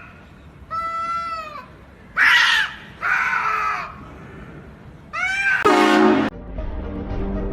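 A cat meowing loudly four times in drawn-out, arching calls. Music starts near the end.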